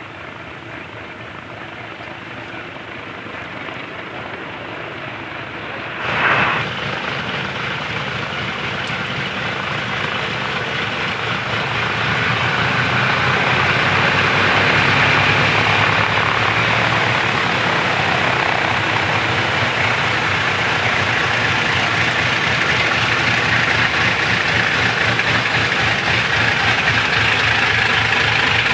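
Boeing B-29 Superfortress's four Wright R-3350 radial piston engines running as it taxis, the propeller drone growing louder as the bomber nears and then holding steady. A brief loud burst comes about six seconds in.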